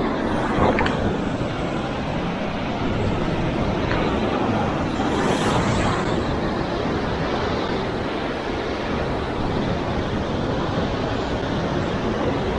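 Rough sea surf breaking and churning against the rocks below: a steady rush of waves without let-up.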